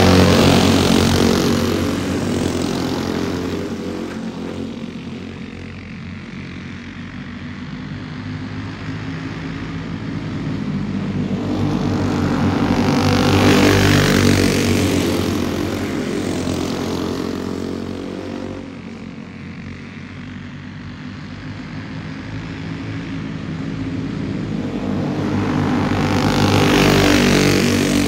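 A pack of dirt-track racing karts' small engines running hard, swelling loud as the field passes close by and fading as it goes round the oval, with a pass at the start, another about halfway and a third near the end.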